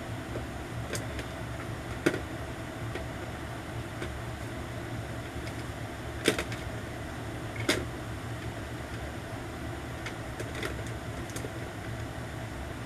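Plastic phone cases clicking and knocking as they are handled and hung on a wall display: scattered light ticks and three sharper knocks, over a steady low hum.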